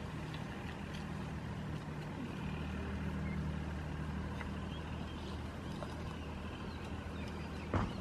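Steady low machine hum, with a single sharp knock near the end.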